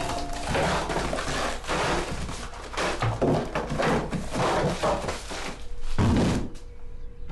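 Food boxes and packets being swept off cupboard shelves into a metal dustbin lined with a plastic bag: a continuous rustling clatter of cardboard and wrappers tumbling in, then one heavy thud about six seconds in.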